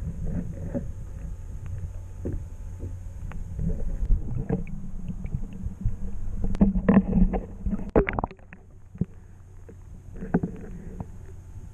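Muffled underwater rumble and irregular knocks from a GoPro held below the surface beside a drifting kayak. About six to eight seconds in comes a louder run of splashing and knocks as the camera is lifted out and dipped back in, after which the rumble drops away.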